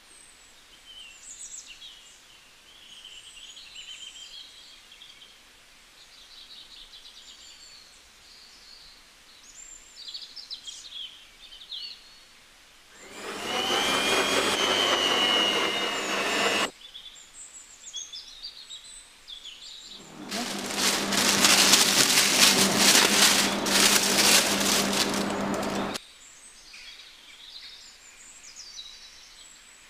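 Electric stand mixer with twin beaters beating choux pastry dough: it runs a few seconds with a rising whine, stops, then runs again for longer. Birds chirp faintly in the background.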